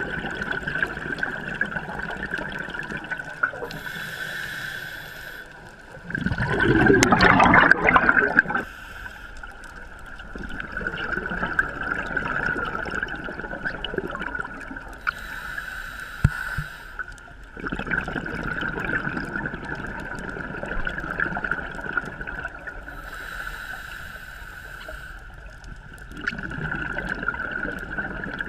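Scuba diver breathing through a regulator underwater: hissing breaths and a loud gush of exhaled bubbles about six seconds in, with a steady high hum through most of it.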